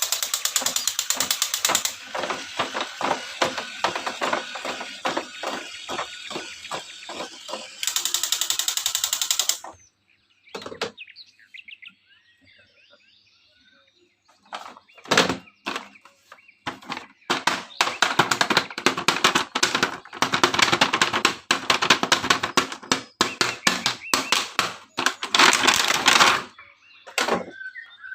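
Toy packaging being handled: plastic and cardboard rustling and crinkling with many small clicks and knocks. It stops for a few seconds about halfway through, then starts again.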